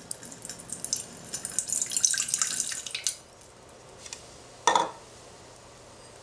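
Water poured into an empty stainless steel saucepan, splashing for about three seconds and then stopping. A single sharp plink comes about a second and a half later.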